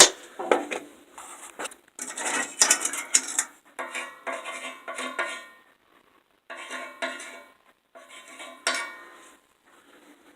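Steel pieces clinking and clattering as they are handled, in several irregular bursts of metallic rattling with brief ringing, and a sharp knock near the end.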